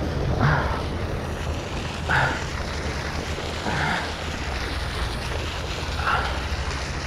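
Steady wind noise rumbling on the microphone over open water, with a faint short sound repeating about every two seconds.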